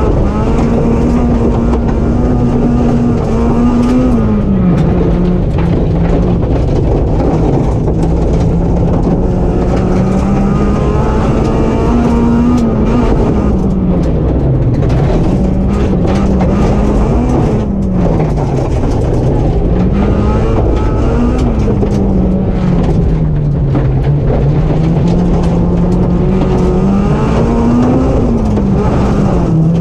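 Rally car engine heard from on board while driving a gravel stage, holding fairly steady revs with several rises and dips in pitch, mostly in the second half. Short clicks and rattles of gravel against the car run alongside.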